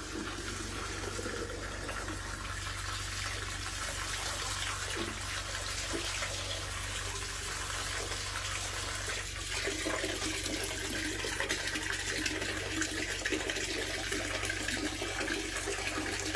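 Tap water running in a steady stream into a plastic bottle held under the tap and splashing into a plastic basin, with a steady low hum underneath.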